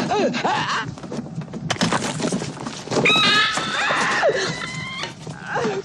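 Film soundtrack: people shouting and a man screaming as he convulses, with a few sharp knocks, then a woman's long high-pitched scream starting about three seconds in.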